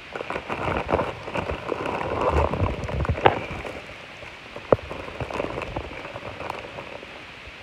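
Plastic poly mailer crinkling and crackling as it is handled and opened, busiest over the first three seconds, with two sharp snaps about three and five seconds in, then fainter rustling.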